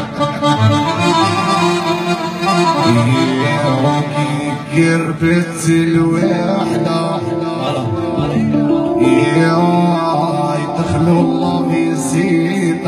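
Live band music played loud over stage loudspeakers: an instrumental passage of long held melody notes, with no lyrics sung.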